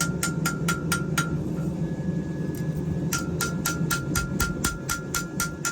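Rapid, evenly spaced metallic ticking, about four or five a second, over a steady low roar. The ticking stops about a second in and starts again about three seconds in.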